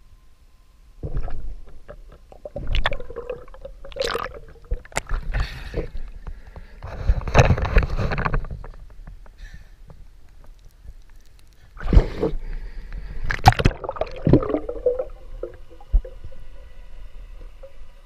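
Water splashing and gurgling around a camera moving in and out of lake water during a freedive, heard as irregular muffled bursts; the longest is about seven to nine seconds in.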